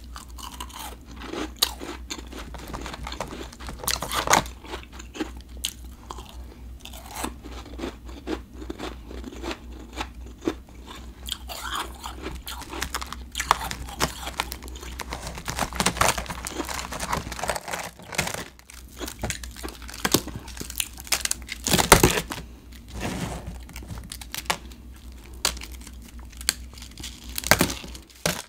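Refrozen blended ice crunching crisply as it is bitten and chewed close to the microphone, one crisp crunch after another, the loudest about three-quarters of the way through, with fingers breaking pieces off the block. A steady low hum runs underneath.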